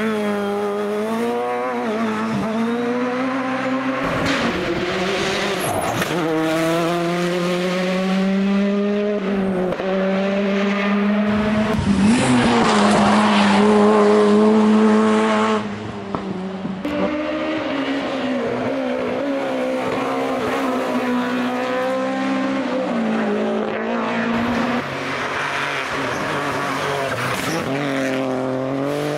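Rally cars driven hard on a special stage, each engine climbing and dropping in pitch through gear changes and lifts, with tyre squeal. The sound changes abruptly several times as one car's pass gives way to another's. It is loudest for a few seconds just before the middle.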